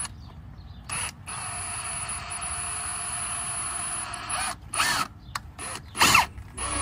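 Cordless drill driving screws into a car bumper: the motor runs steadily for about three seconds, then gives a few short trigger bursts, each with a whine that rises and falls.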